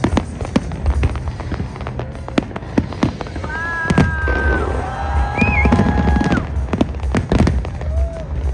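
Fireworks going off: a rapid, irregular run of bangs and crackles over a continuous deep rumble. A held, horn-like chord of several steady tones sounds over it for about three seconds in the middle.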